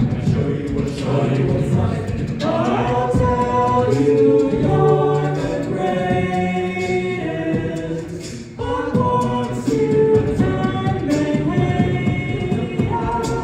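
A cappella vocal group singing in harmony: sustained backing voices over a low bass line, with a lead voice on top. The sound dips briefly about eight and a half seconds in, then the voices come back in.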